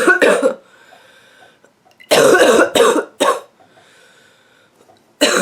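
A woman's barking cough in repeated fits: a bout tails off at the start, two more coughs come about two seconds in, and another fit begins right at the end, with quieter breaths drawn in between.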